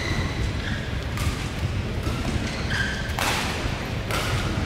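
Sports shoes squeaking briefly on a synthetic badminton court mat, several short squeaks over a few seconds, over a steady low rumble.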